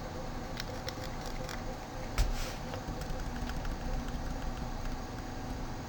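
Steady fan-like room hum with a few faint clicks, and one louder click about two seconds in.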